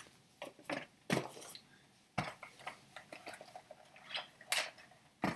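Paper and cardboard being handled: a folded instruction leaflet and a white cardboard card-deck insert rustling, tapping and scraping in a series of short, irregular sounds, the sharpest near the end.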